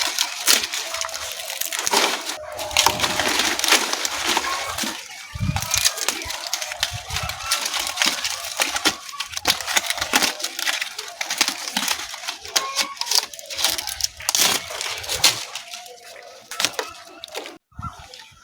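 Cinnamon leaves being handled and broken up, with irregular crackling, snapping and clicking throughout.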